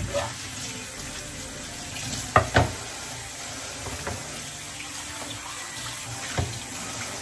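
Kitchen tap running into a stainless steel sink while sliced pork is rinsed in a bowl under the stream. A couple of sharp knocks come about two and a half seconds in, and another near the end.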